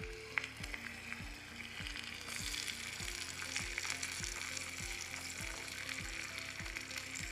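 Chopped garlic sizzling in hot oil in a small clay pot, stirred with a tiny spoon. The sizzle swells about two seconds in.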